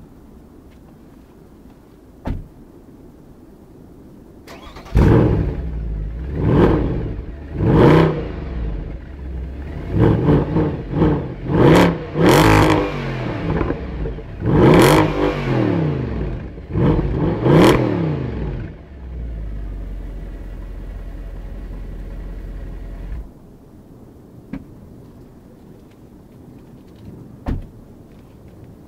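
Mercedes SL 63 AMG's 6.2-litre V8 starting about five seconds in, then revved hard in about eight quick throttle blips, each rising and falling in pitch. It settles into a steady idle and is switched off abruptly later on. A few faint clicks come before the start and after the shutdown.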